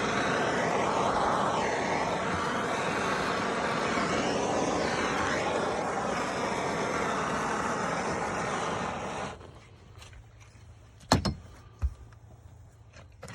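Handheld torch flame hissing steadily as it heats red lens repair tape, then shut off abruptly about nine seconds in. Two short, sharp knocks follow.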